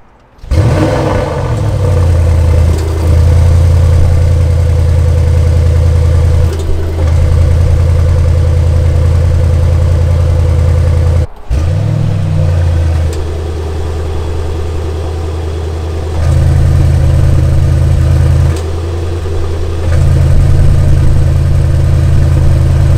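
Mercedes-AMG 4.0-litre twin-turbo V8 starting up with a short rev flare about half a second in, then settling into a deep, steady idle. Near the middle it cuts out briefly and comes back with another short flare, then idles on in alternately louder and quieter stretches.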